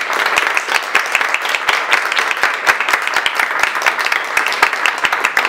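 A group of people applauding, many hands clapping at once in a steady, dense patter.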